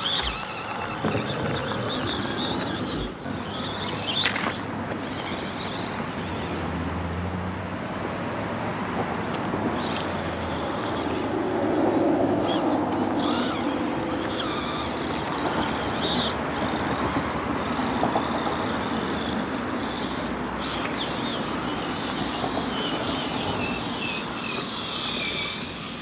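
Small electric motor and gearbox of a 1/24-scale RC rock crawler running as it climbs over rock, mixed with outdoor background noise.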